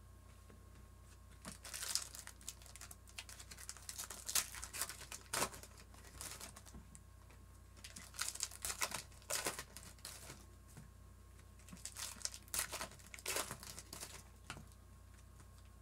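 Foil wrappers of trading-card packs crinkling in the hands in irregular bursts as the packs are handled.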